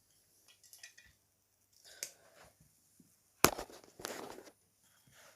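Lego bricks clicking and clattering as they are handled and pressed onto a base plate, with a sharp click about three and a half seconds in followed by about a second of clatter.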